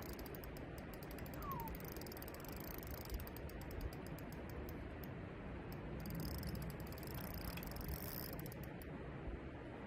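Spinning reel being cranked, giving a rapid fine ticking. The ticking pauses about halfway and comes back briefly near the end, over a low steady rumble.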